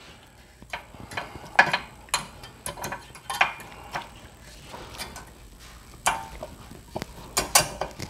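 Irregular metallic clicks and clinks as a new brake pad's steel backing plate is worked into the caliper bracket's retaining clips. A few clinks are sharper, one a bit over a second in and two close together near the end.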